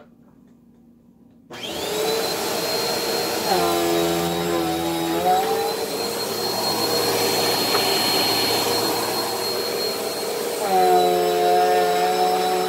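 Bissell PowerForce Helix Turbo upright vacuum switched on about a second and a half in: the motor spins up with a rising whine that settles into a steady high whine as it is pushed over a thin rug. A deeper droning hum joins twice, around four seconds in and again near the end.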